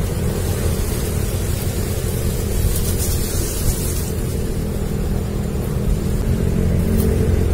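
Steady low rumble and hiss with a faint, even hum underneath; no single event stands out.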